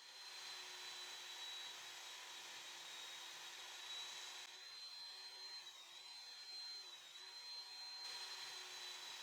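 Power saw running steadily while ripping the edges of wood boards straight, with a high, slightly wavering whine.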